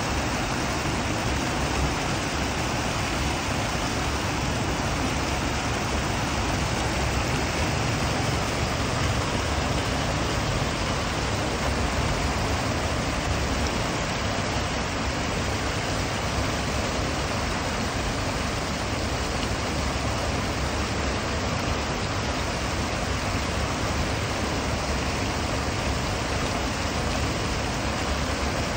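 Steady rush of water pouring over a stepped concrete weir and churning into white water below.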